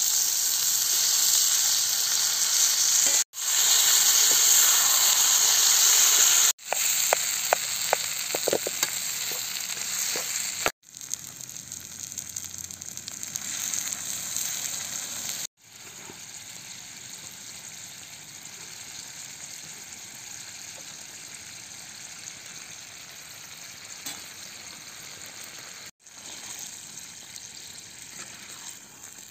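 Masala and potato chunks sizzling loudly as they fry in a kadai over a wood fire, with a few metal clicks of the spatula partway through. After water is poured in, the pan settles to a quieter steady sizzle. The sound breaks off abruptly several times at edit cuts.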